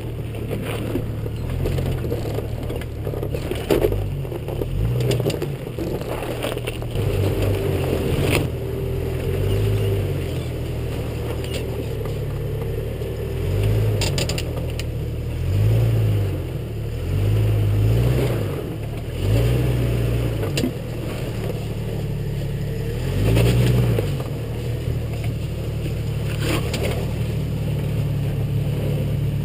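Jeep Cherokee XJ engine running at low revs as the truck crawls over rocks, the throttle pressed in several short surges in the second half. Scattered sharp knocks and scrapes of tyres and underbody against rock.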